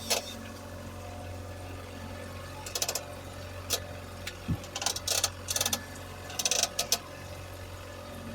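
Fishing reel clicking in several short bursts of rapid clicks while a large king salmon is being fought on the line, over a steady low hum.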